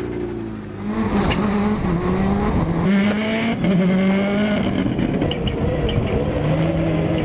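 600 hp rallycross Supercar engines at high revs, the pitch climbing and dropping again and again as the cars accelerate and shift through the gears.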